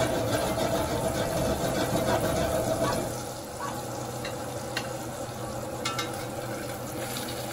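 Ribeye steaks sizzling in butter in a cast-iron skillet as a spoon bastes them, louder for the first three seconds or so, with a couple of light clinks of the spoon against the pan later on.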